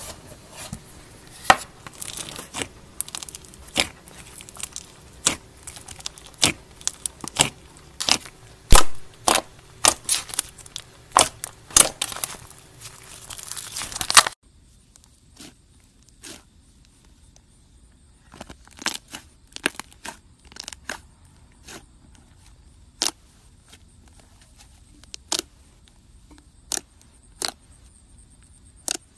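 Slime being squeezed and kneaded by hand: a foam-bead slime crackling and popping densely, then, about halfway through, a fluffy white slime being stretched and pulled with sparser pops and snaps.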